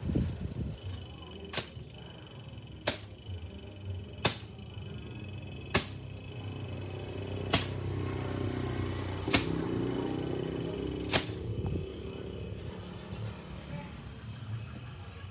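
Seven sharp clicks about every one and a half seconds over a low hum that grows louder in the middle and then fades.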